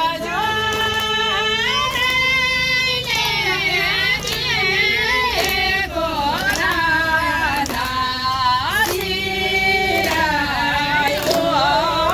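A high female voice singing, holding long notes that waver in pitch, with scattered hand claps.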